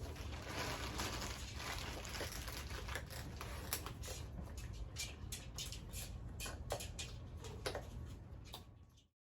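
Scattered sharp clicks, taps and rustling from macaws handling and dropping food and shifting about. It cuts off abruptly to silence near the end.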